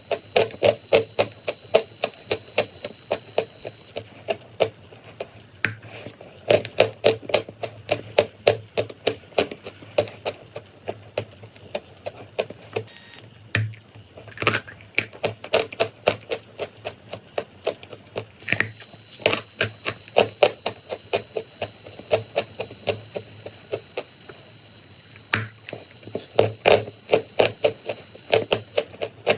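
Chalk and clay crunching close up, in runs of sharp crunches several a second with short pauses between runs.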